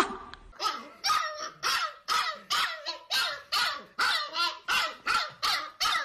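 Husky puppy barking: a steady run of short, high yappy barks, about two a second.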